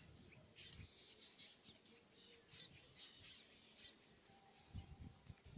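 Faint bird chirps: a run of short, high twittering notes in the first half or so, then they stop.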